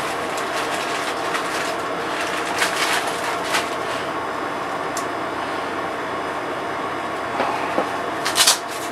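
Steady noise of a wall-mounted air conditioner running, with scattered light clicks and knocks of tools and parts being handled on a workbench and a quick cluster of knocks near the end.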